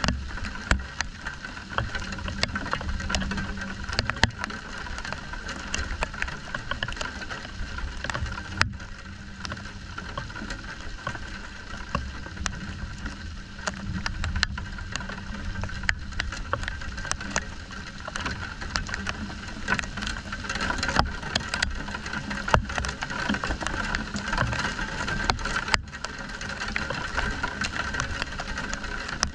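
Steady rain falling during a thunderstorm, with many sharp drops striking close to the microphone and an uneven low rumble underneath.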